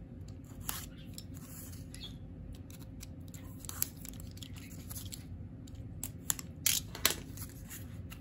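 Snap-off utility knife slicing through packing tape on a small cardboard mailer: a run of short scrapes and clicks as the blade works along the edge, with a few louder clicks about six to seven seconds in.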